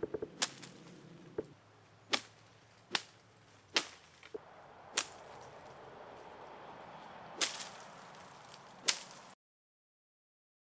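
About seven sharp cracks at uneven intervals over a faint steady background hiss. The sound then cuts off suddenly near the end.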